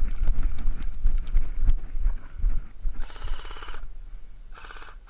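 Heavy, irregular thuds of footsteps over rough tussock grass, then two short bursts of rapid automatic airsoft rifle fire, about three seconds in and again near the end, each lasting under a second.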